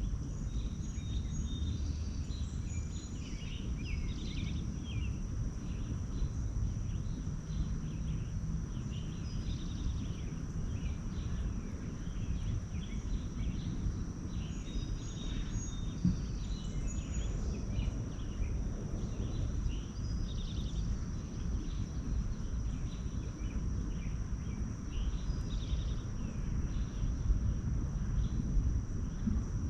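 Wild songbirds chirping and trilling on and off, over a steady low outdoor rumble and a constant thin high whine.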